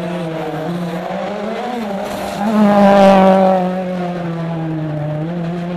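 A rally car's engine running hard as the car drives through a bend. The engine note swells loud for about a second midway through, then falls back to a steady level.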